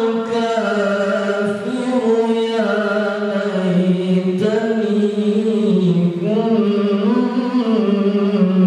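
A man reciting the Quran in a slow, melodic chant: one voice holding long notes that waver and bend in pitch, with a couple of short breaks for breath.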